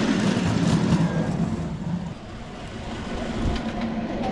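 Ride-on miniature railway train running along the track, a steady rumble with faint clicking of wheels on the rails.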